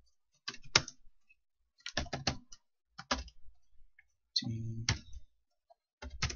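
Computer keyboard keystrokes in several short quick runs of clicks with pauses between, and a brief low hum about two-thirds in.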